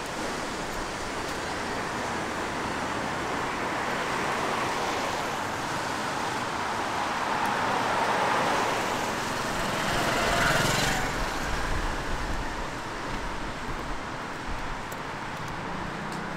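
A car passing on a wet street, its tyres hissing louder as it nears and peaking about ten seconds in, then falling away sharply. Under it is a steady wash of rain and wet traffic noise.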